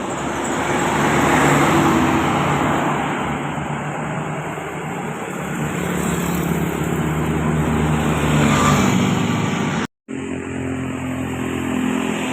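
Large vehicles, most likely buses, passing on the road: steady diesel engine running under tyre and road noise that swells about a second in and again near nine seconds. The sound cuts out for a moment just before the tenth second.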